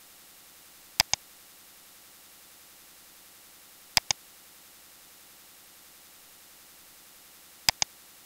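A computer mouse button clicked three times, each time as a pair of sharp clicks close together: about a second in, about four seconds in, and near the end.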